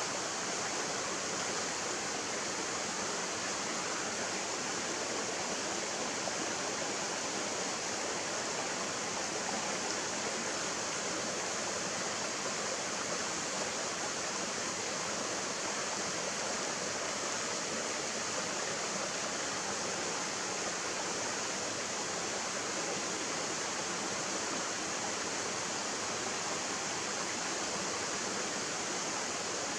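Mountain stream running over rocks and shallow riffles: a steady, even rush of water with a lot of hiss in it.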